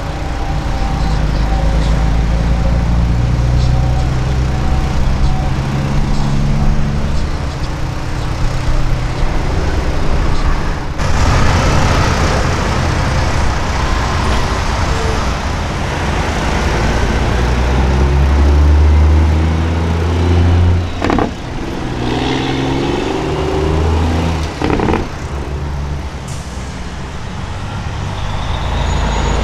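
Heavy diesel semi-truck engines on Peterbilt tractor-trailers running as the trucks pull away and drive past, a deep steady rumble. The engine note rises and falls as they shift gears, with a couple of short sharp sounds in the second half.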